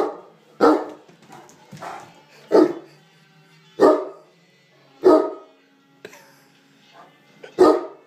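Great Dane barking: six loud single barks, spaced a second or so apart and irregular.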